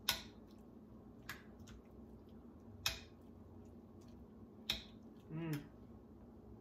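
Metal spoon stirring soup in a ceramic bowl, clinking against the bowl's side four times at uneven intervals.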